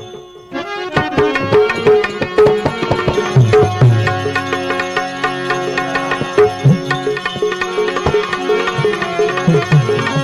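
Instrumental interlude of a Gujarati bhajan: tabla drumming with bending bass strokes under a sustained melody instrument, after a brief drop about half a second in.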